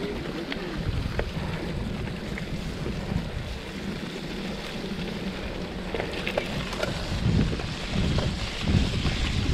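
Wind buffeting the microphone, with a few faint scattered clicks; the buffeting grows a little louder and more uneven in the second half.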